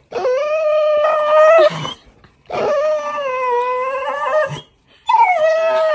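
Golden retriever squealing in excited greeting: three long, high whining squeals with short breaths between, the pitch wavering slightly within each.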